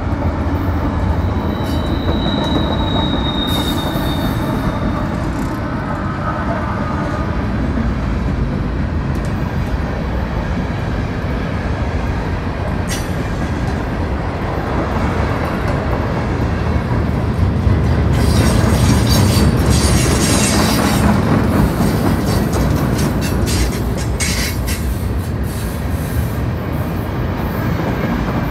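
Freight train rolling past on a curve: steel wheels rumbling and clicking over the rails as the last locomotives and then freight cars go by. A thin, high wheel squeal sounds briefly a few seconds in, and there is a louder stretch of rattling and clacking about two-thirds of the way through.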